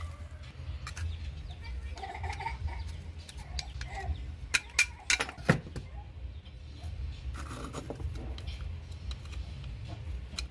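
Light clicks and taps of small metal parts being handled, loudest in a cluster about halfway through, with occasional clucking in the background.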